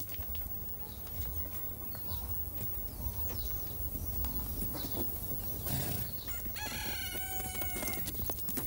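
A rooster crows once near the end, one call lasting a little over a second, over faint outdoor background with scattered light clicks.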